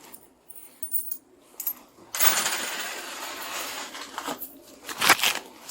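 Small metal objects clinking and jangling as they are handled: a few sharp clicks, about two seconds of dense jingling, then a cluster of loud clanks near the end.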